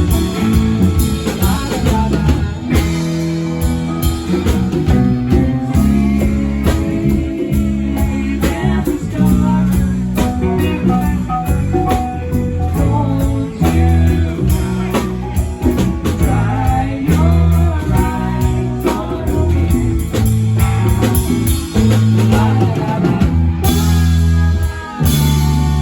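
Rock band playing: guitar and drum kit, with some singing.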